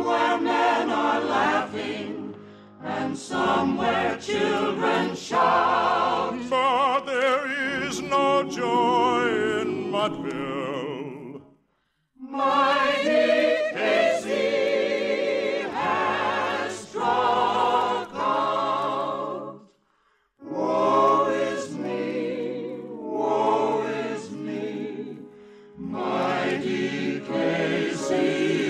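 Choir singing a number from a radio operetta, with vibrato and sustained low notes beneath. It stops twice for under a second, about 12 s and 20 s in.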